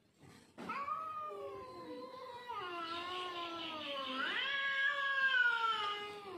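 Domestic cat caterwauling: one long, drawn-out yowl starting about half a second in, wavering and sliding in pitch, rising about four seconds in and dropping lower at the end. It is a territorial threat call to a rival cat.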